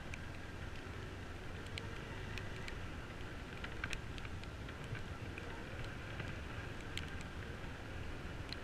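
Bajaj Pulsar motorcycle's single-cylinder engine running steadily as it rides over a muddy dirt track, with scattered sharp ticks throughout.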